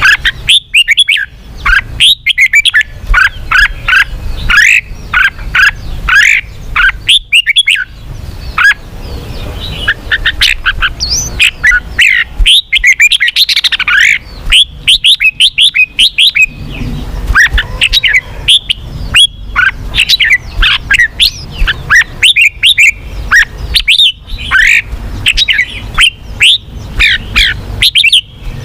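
Red-whiskered bulbul singing: rapid, almost unbroken runs of short chirping notes over a low rumble.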